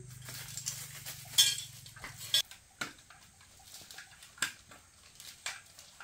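Small hard objects clinking and knocking as they are handled, in irregular strokes with one louder clink about a second and a half in. A steady low hum runs underneath and cuts off suddenly about two and a half seconds in.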